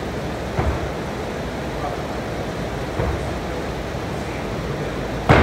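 A 40 lb dumbbell dropped from overhead lands on the gym floor with one loud thud near the end, over a steady background noise. Two softer knocks come earlier, about half a second and three seconds in.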